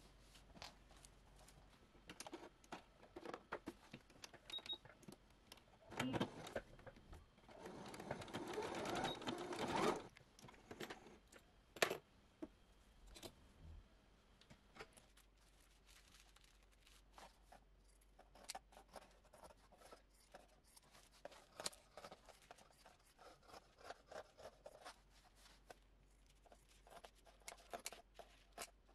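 Quiet handling sounds of paper pattern pieces and knit fabric being laid out, pinned and cut with scissors: scattered soft rustles and clicks, with a few seconds of louder rustling about a quarter of the way in.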